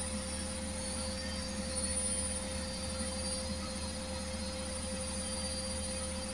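Beko washing machine running with a steady whine over a low hum.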